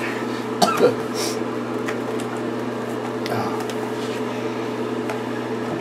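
Steady electrical hum, with faint wet squishing of hands working lather into a dog's soaked coat.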